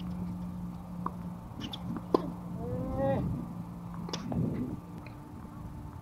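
Tennis ball struck with a racket during a rally: a sharp pop about two seconds in and a weaker one about two seconds later, with a short rising squeak between them. Wind rumbling on the microphone throughout.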